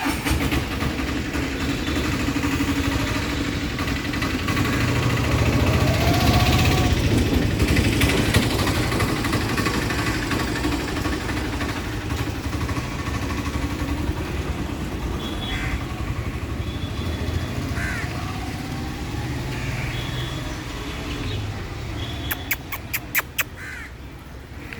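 Steady road-traffic rumble of passing motor vehicles, with a few crow caws through the middle and a quick run of sharp clicks near the end.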